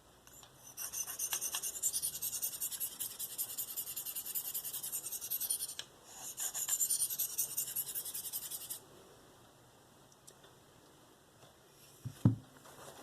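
V-Toku2 steel blade of a Spyderco Endura 4 stroked freehand over a Spyderco 302M medium ceramic stone, making a quick, steady scraping rasp. It comes in two runs, about five seconds and then two and a half seconds long. A single low knock sounds near the end.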